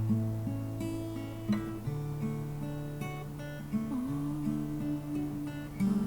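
Background music of gently plucked acoustic guitar, holding a slow melody over sustained low notes.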